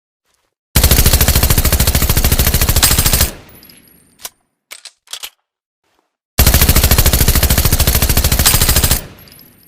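Machine pistol firing two long full-auto bursts of rapid shots, each about two and a half seconds, with a short fading echo after each and a few faint clicks in between.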